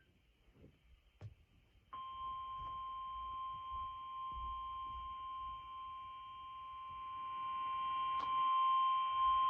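NOAA Weather Radio 1050 Hz warning alarm tone, a single steady tone that starts about two seconds in and holds, over faint radio hiss: the tone alert of a weekly test of the weather radio alert system.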